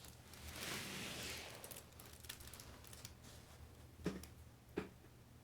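Faint rustling and handling of wrapping paper as a package of toys is unwrapped, with two short sharp knocks near the end.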